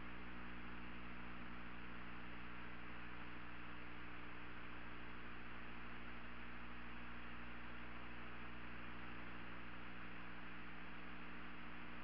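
Steady hiss with a low electrical hum underneath, unchanging throughout: the background noise of the broadcast audio line with no one speaking.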